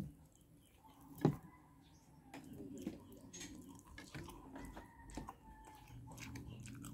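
Faint, wet eating sounds of boiled sweet potato leaves handled and eaten with the fingers: scattered soft clicks, ticks and mouth noises, with one louder knock about a second in.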